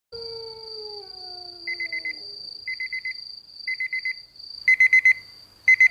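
Electronic alarm clock beeping in quick groups of four, about one group a second, getting louder toward the end. In the first two seconds a low falling tone fades out, and a steady high whine runs underneath.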